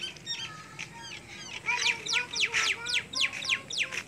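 Birds chirping: scattered short calls, then about two seconds in a rapid series of sharply falling whistles, several a second.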